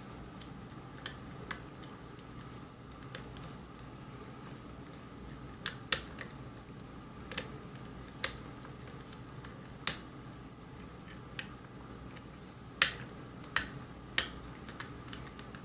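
Irregular sharp metallic clicks and ticks of a lock pick and tension wrench working the pins of a five-pin mortise lock cylinder, a dozen or so scattered clicks with a few louder ones.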